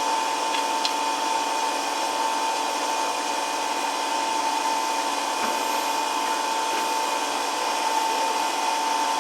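Electric woodworking machine running steadily: a continuous motor whine over an even hiss, with no change in load.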